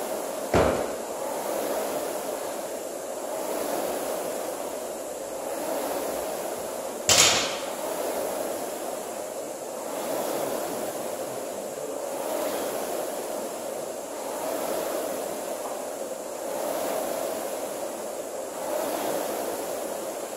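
Air rowing machine's fan flywheel whooshing steadily, swelling with each drive stroke about every two seconds. Two sharp knocks, about half a second in and about seven seconds in, are the loudest sounds.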